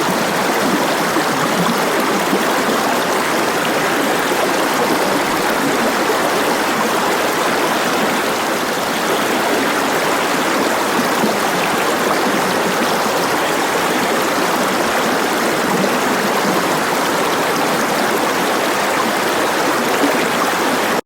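Rushing water, a loud steady rush that cuts off abruptly at the end.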